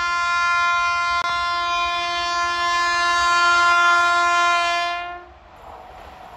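Indian Railways locomotive horn sounding one long steady blast of about five seconds. It cuts off near the end, leaving the rumble of the passing train.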